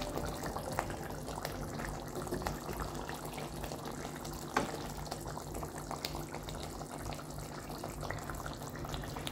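Thick curry gravy simmering in a steel pan, with small bubbles popping at an irregular patter. There is a single sharp knock about halfway through.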